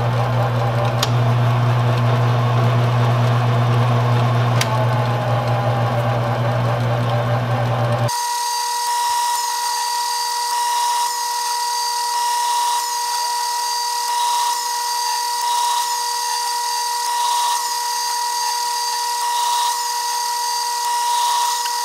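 Grizzly G0765 mini lathe running under power while the tool takes a thread-cutting pass in aluminium. A low motor hum gives way abruptly, about eight seconds in, to a steady high whine with a faint sound that repeats every second or two.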